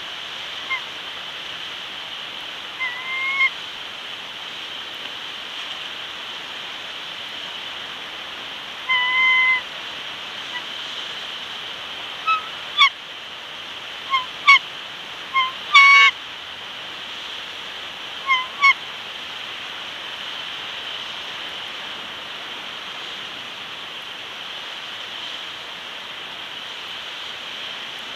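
Bald eagles calling: short, high, pitched piping notes in scattered groups of two or three, heard during the first two-thirds, over a steady hiss.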